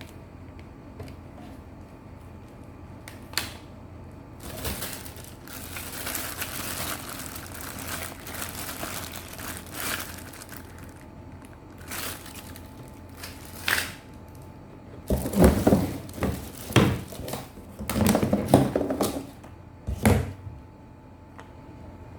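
Crinkling and rustling as something is handled, with scattered clicks, then a run of loud knocks and thuds near the end.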